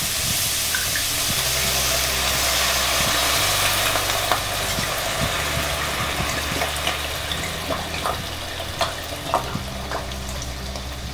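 Chopped onion, celery and carrot sizzling in a hot cast-iron Dutch oven as red wine is poured in. The hissing eases a little, and scattered pops and crackles come through in the second half.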